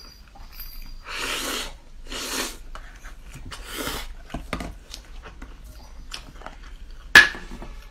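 Loud slurping as spicy instant noodles are sucked out of clear plastic tubes: three slurps of about half a second each, with smaller mouth and handling noises between them. A sharp click comes near the end.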